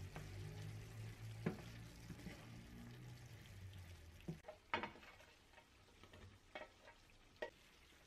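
A wooden spatula stirs beef and vegetables in a nonstick frying pan over a faint sizzle. A few scattered taps and scrapes of the spatula against the pan stand out, the loudest a little under five seconds in.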